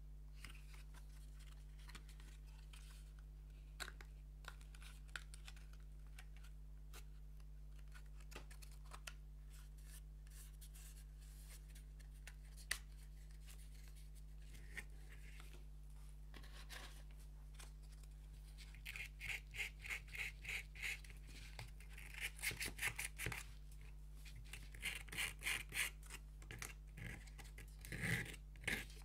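Thin plywood parts of a wooden model kit being handled: scattered light clicks and taps, then, about two-thirds of the way in, short runs of quick back-and-forth rubbing strokes on the wood, about four a second, with brief pauses between runs.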